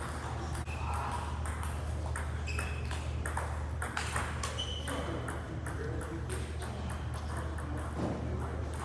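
Table tennis balls clicking off paddles and tables in irregular rallies, the near match mixed with play at several other tables. A steady low hum runs underneath.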